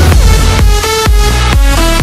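Electronic dance music with a heavy bass and a steady beat, a synth melody stepping between notes.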